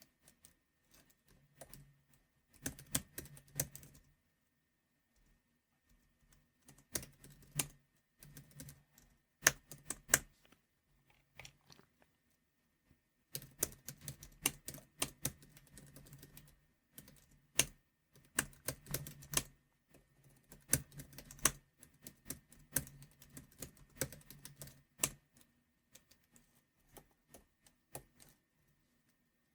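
Typing on a computer keyboard in bursts of rapid keystrokes with pauses between them. A couple of single strokes about a third of the way through are much louder than the rest, and the typing stops near the end.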